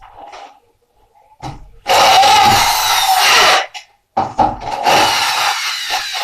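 A power tool run in two bursts of about two seconds each, cutting or drilling during room renovation work.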